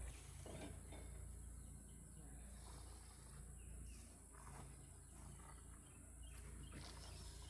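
Near silence: faint outdoor background with a steady high insect drone, and a few faint taps.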